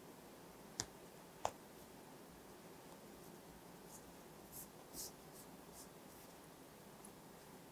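Quiet handling of a crochet hook and cotton yarn as a tail end is tucked inside the work. There are two sharp little clicks about a second in, just over half a second apart, then a few soft rustles of the yarn near the middle.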